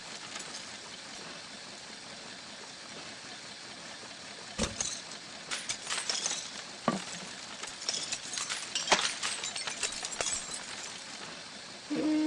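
A steady hiss, then from about four and a half seconds in, irregular sharp cracks and clinks of material being shredded.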